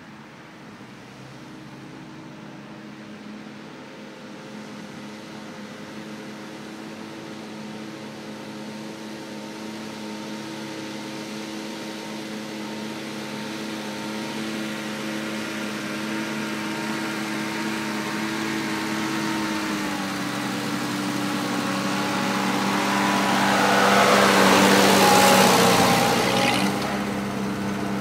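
A 1950 Ford 8N tractor's four-cylinder flathead engine runs steadily under load, pulling a two-bottom plow. It grows steadily louder as the tractor approaches, and its note dips slightly about twenty seconds in. A loud rushing noise rises as the tractor passes closest, a few seconds before the end.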